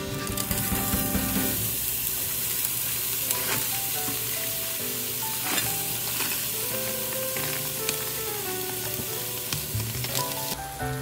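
Kimchi fried rice sizzling in a hot frying pan, a steady hiss with a few faint clicks, over soft background music. The sizzling cuts off near the end.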